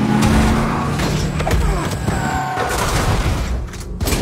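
Action-film soundtrack mix: dense crashes, thuds and booms over music, with an engine running steadily through the first second.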